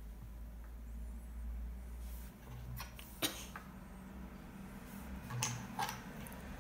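Dominoes being stood up one at a time on a wooden tabletop: a few light clicks in two small groups, over a low steady room hum.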